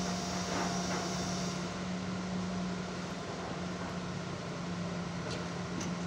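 Diesel engine and hydraulics of an auger piling rig running at a steady pitch while it works a pile bore, with a few faint clicks and knocks.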